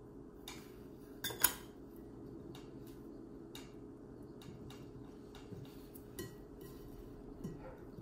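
A small metal spoon clinks against a glass mixing bowl a few times, the loudest about one and a half seconds in, then faint rustling and ticking of fingers mixing flour in the bowl, over a faint steady hum.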